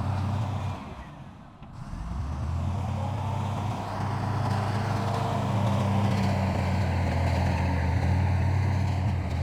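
Diesel engine of heavy earthmoving machinery running steadily with a low drone. It fades briefly about a second in and returns about two seconds in.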